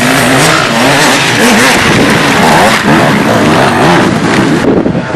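Several enduro dirt bike engines revving hard as the bikes ride by on a dirt track, their pitch rising and falling with the throttle.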